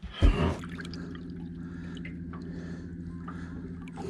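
A small boat motor comes on with a loud start about half a second in, then runs with a steady low hum, with water dripping and splashing around the boat.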